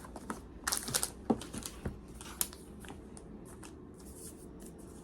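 Cardboard and paper packaging of an iPad box being handled: a run of short rustles, crinkles and light taps.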